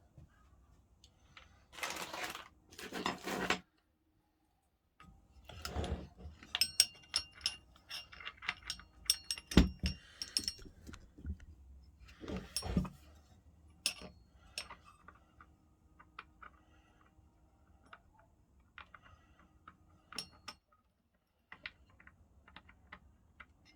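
Small metal parts clinking and clicking as they are handled while the biscuit jointer is worked on, some clinks ringing briefly. Two short rustling or scraping bursts come near the start.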